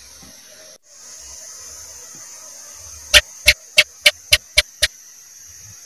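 House gecko (cicak) calling: a run of seven sharp chirps, about three a second, coming a little faster and fading slightly toward the end, over a steady hiss.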